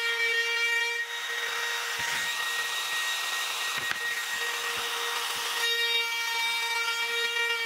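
Makita cordless brushless compact router running at full speed with a steady high whine. From about a second in until near the end it cuts along the edge of a wooden board, a rushing cutting noise over the whine, with a few light knocks.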